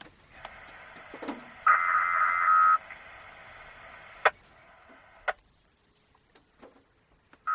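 A radio transmission after a dispatcher's test announcement: a hiss cut off at the top, with a steady tone lasting about a second, two seconds in. The transmission then fades, leaving a couple of sharp clicks around four and five seconds in.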